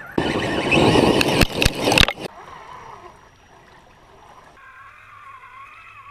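Scale RC crawler trucks driving through mud and water: a loud splashing rush with a few sharp knocks for about the first two seconds, then quieter, with the electric drive motor's wavering whine.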